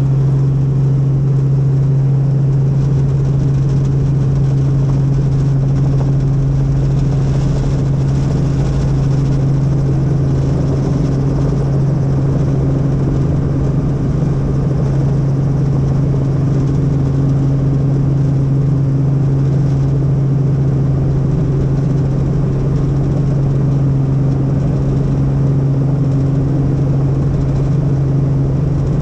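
Helicopter in flight: a steady, loud engine-and-rotor drone with a constant low hum that does not change.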